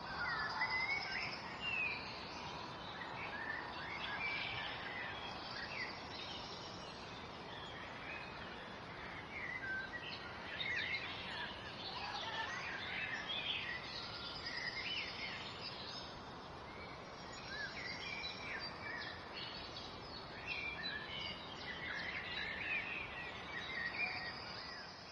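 Several songbirds chirping and singing, short overlapping calls and quick rising and falling whistles over a steady background hiss.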